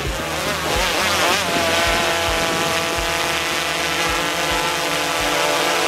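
DJI Inspire 1 quadcopter flying overhead, its four propellers making a steady buzzing whine of several tones together. The pitch wavers up and down for the first second or so, then holds steady.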